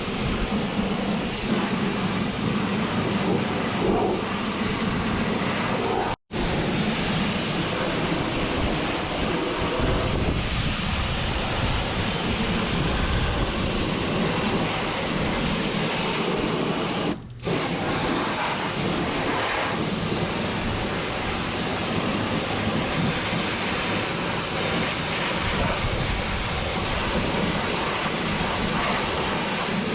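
High-pressure washer spraying water onto farm machinery: a steady hiss and spatter of spray that cuts out briefly twice.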